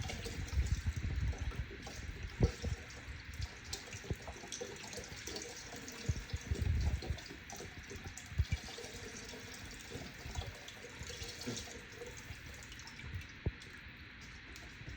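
Steady hiss of running or pouring water in the kitchen, with scattered light knocks and thumps of kitchenware.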